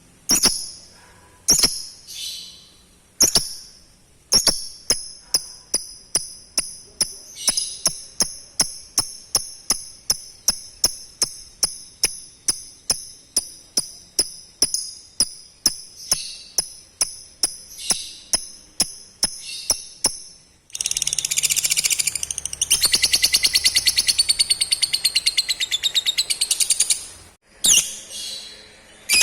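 Lovebird calling: a run of sharp, high chirps at about three a second, then a long, rapid trill lasting about six seconds, the 'ngekek' chatter, then a few more chirps.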